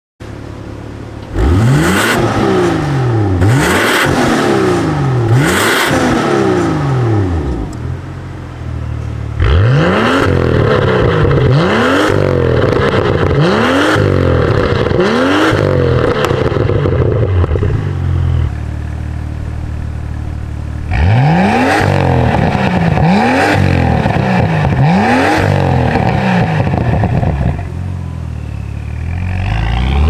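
BMW F87 M2's N55 turbocharged inline-six revved through a Fi Exhaust valvetronic catback with the exhaust valves open. Three sets of quick throttle blips from idle, each rev rising sharply and falling back, with idle between the sets. Near the end the revs climb slowly as the car pulls away.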